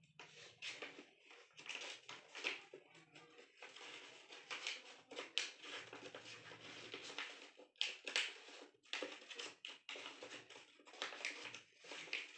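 Sheet of paper rustling and crackling as it is folded and creased by hand into an origami paper boat, in quick irregular crinkles.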